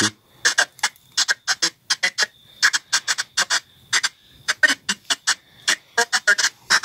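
Spirit box sweeping through FM radio frequencies, giving rapid, choppy bursts of static and radio fragments, about three to four a second, over a faint steady high whine.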